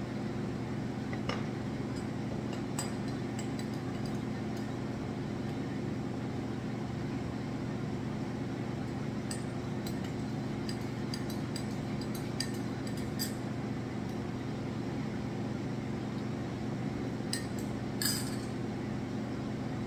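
A metal spoon clinking against a ceramic coffee mug a handful of times, in scattered light taps. A steady low appliance hum runs underneath.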